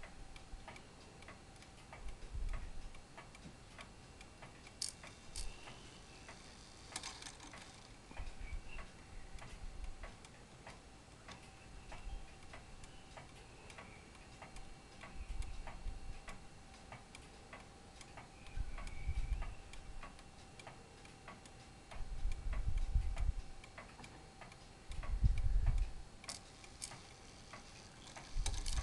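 Uncased brass clock movement ticking steadily, its escapement giving even, regular clicks. Several low rumbles come and go underneath, the loudest near the end.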